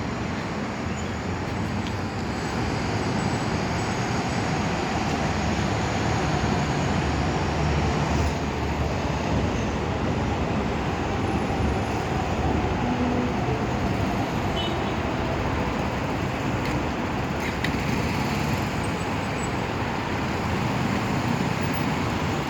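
Steady city road traffic with a passing train, the noise swelling gently from about three seconds in and easing after about twelve.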